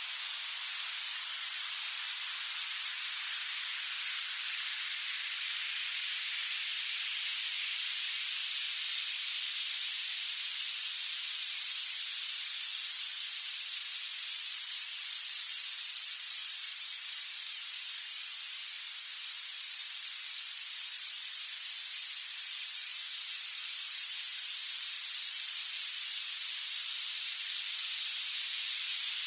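Violet noise: a steady, bright hiss weighted toward the highest pitches, with no bass or low range at all.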